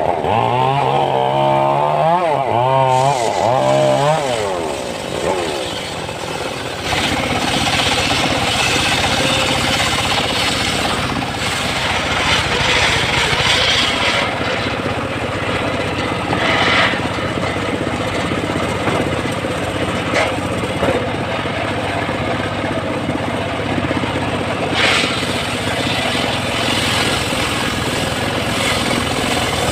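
Homemade circular sawmill ripping a log lengthwise into boards: the blade cuts through the wood with a steady, noisy rasp over the machine's running hum. In the first few seconds a pitched note wavers up and down before the cut settles into its steady sound from about seven seconds in.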